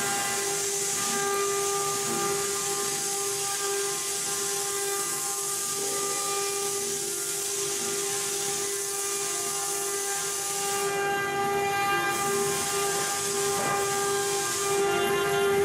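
CNC router spindle running at speed: a steady high whine with a constant hiss over it, a little louder near the end.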